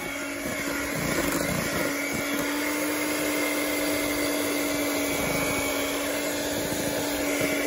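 Electric hand mixer running steadily at speed, its beaters spinning through chocolate cake batter in a stainless steel bowl: a constant motor hum with a fainter high whine above it.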